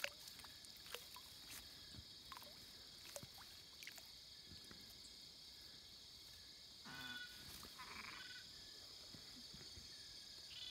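Faint night chorus at the waterside: a steady high drone of insects, with a frog calling in a short pulsed series about seven seconds in, and a few faint ticks.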